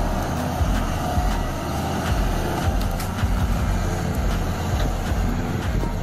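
Caterpillar 320D hydraulic excavator's diesel engine running steadily under load as its boom and bucket push a tree over.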